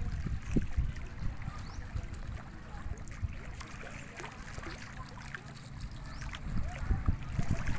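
Gusty wind rumbling on the microphone over open river water, with faint lapping of small waves.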